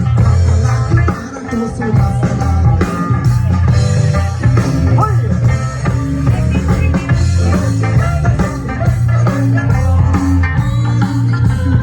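A live band playing a song: guitar over a heavy bass line, with drums keeping a steady beat.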